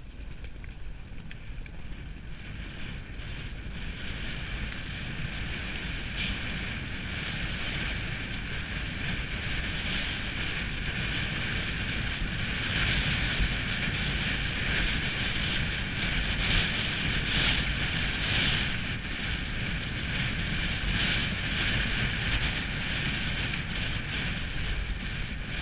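Wind rushing over the microphone of a camera ridden on a galloping racehorse, with the dull beat of hooves on turf underneath. It grows louder over the first half and stays loud.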